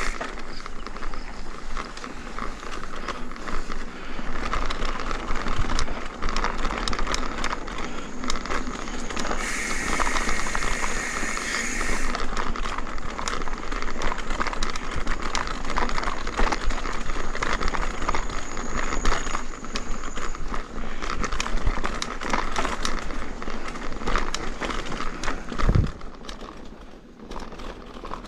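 Mountain bike ridden over rough, bumpy ground: a continuous rattle and crackle of tyres on dirt and gravel and the bike's parts clattering, with low rumbling wind on the microphone.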